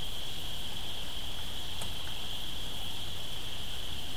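Outdoor ambience: a steady high-pitched buzzing drone with a low rumble beneath it, and one faint click a little under two seconds in.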